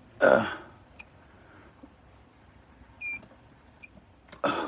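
A man's short breathy vocal sound, then near quiet broken by a brief high electronic beep about three seconds in and a couple of faint ticks, with another breath near the end.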